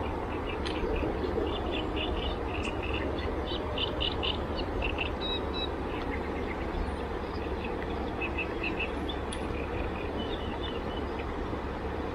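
Steady outdoor rushing noise with a strong low rumble, overlaid by short high chirps that come in small clusters every second or so, typical of small birds or insects at the water's edge.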